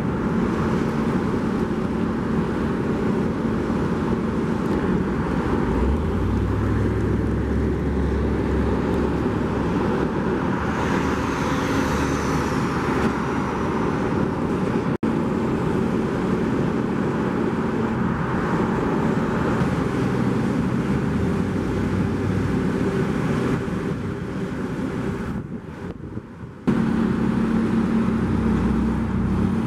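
Diesel engine of a GP40-2 freight locomotive running as it rolls slowly past pulling hopper cars. The engine is a turbocharged EMD 645 V16. About halfway through the sound changes to road traffic on a multi-lane street, with cars and semi-trucks driving by.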